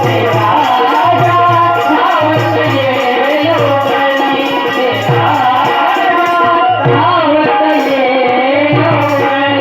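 Indian folk-style music: a wavering sung melody over regular drum beats.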